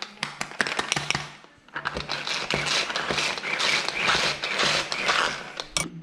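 Hand-pulled string food chopper whirring and clicking as its cord is yanked again and again, the blades spinning through garlic and ginger in the bowl. It comes in several quick pulls, with a short pause about a second and a half in.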